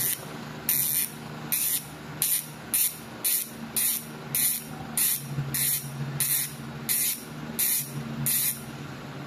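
Hassns Pro 7 rear hub's freehub ratchet buzzing loudly in short bursts, about two a second, as the freehub is spun in repeated short strokes. It is the loud freewheel click that cyclists prize in an upgrade hub.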